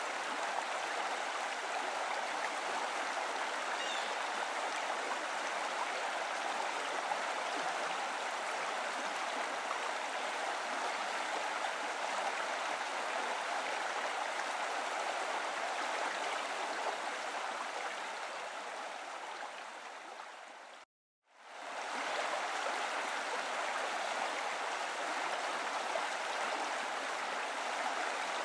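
Steady rush of running water, like a flowing stream. About three quarters of the way through, the water fades down, drops out for a moment and fades back in.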